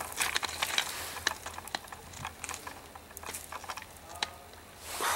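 Irregular light clicks and crunches of footsteps and movement over rocky ground, with a short rustle near the end.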